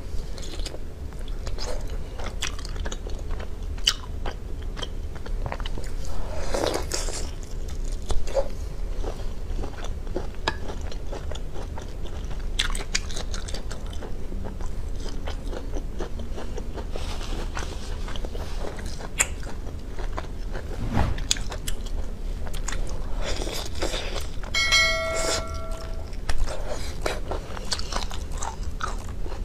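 Close-miked mouth sounds of a person biting and chewing cooked cat's-eye sea snail meat: wet chewing with frequent small clicks and crunches.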